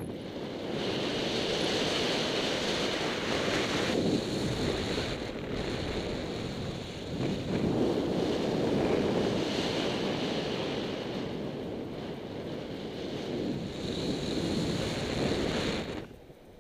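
Airflow rushing over the camera microphone of a paraglider pilot in flight on a small speed wing. The rush swells and eases by turns and drops away suddenly near the end.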